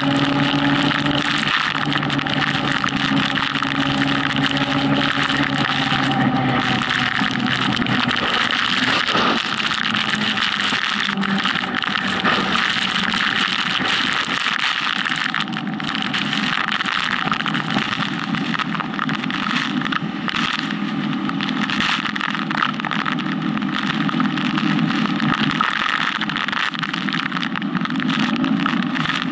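Motorcycle riding at motorway speed through heavy rain: a steady rush of wind and rain noise on the camera, with the engine running underneath. The engine note is clearest in the first few seconds.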